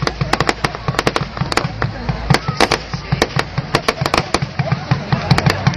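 Fireworks display going off in a dense, irregular barrage of sharp bangs and crackles, several a second with no let-up.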